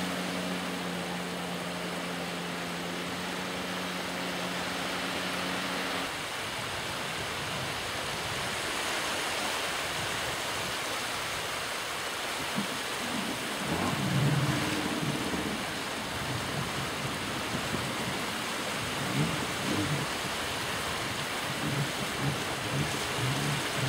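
Personal watercraft (jet ski) engine droning steadily at a distance under heavy wind noise on the microphone; about six seconds in the engine drops out, leaving wind hiss and irregular low rumbles of wind buffeting.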